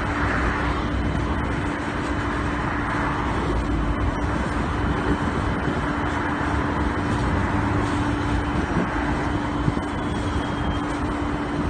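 Steady engine drone with a constant low hum.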